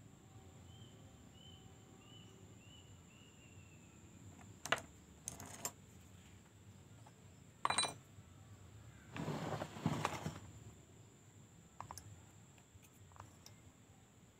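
Tools and small metal parts being handled during hand work on a chainsaw: a few sharp metallic clinks, then a longer rattling shuffle about two thirds through.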